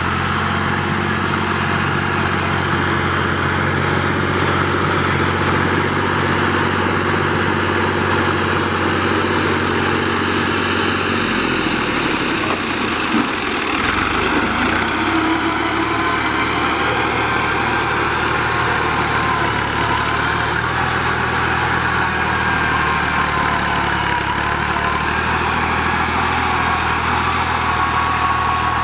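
New Holland farm tractor's diesel engine running steadily under load while pulling a heavy-duty tined cultivator through the field. The engine note shifts about twelve seconds in.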